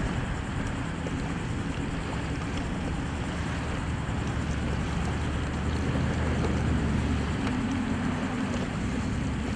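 Outdoor ambience over open water: wind buffeting the microphone and water lapping, with a low steady drone underneath.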